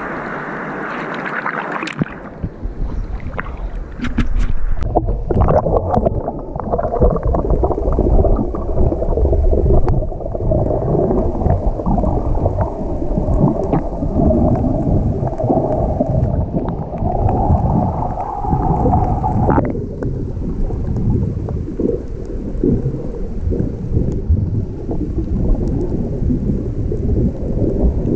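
Strong wind buffeting the microphone over rough surf on a stormy sea, a loud continuous rumbling noise. It changes abruptly about two seconds in and again about twenty seconds in.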